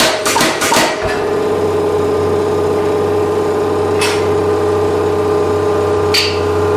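MZ75 air power hammer pounding red-hot steel at about three blows a second, stopping about a second in. A steady machine hum follows, with two single metal clinks as tooling is set on the bottom die.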